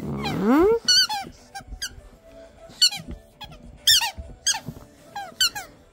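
Rubber squeaky toy being chewed by a dog. It gives one long rising squeak, then about a dozen short, sharp squeaks at irregular intervals.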